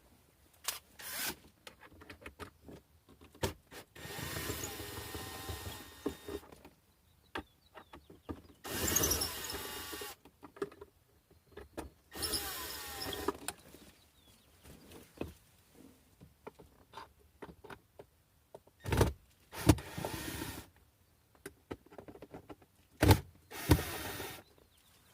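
Cordless drill-driver backing screws out of a wooden box, whirring in about five runs of one to two seconds each, its pitch rising and falling with the trigger, between clicks and a few sharp knocks of handling.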